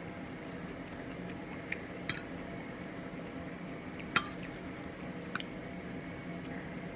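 Metal fork clinking against a dinner plate while picking up food: two sharp clinks about two and four seconds in and a couple of fainter taps, over a steady low hum.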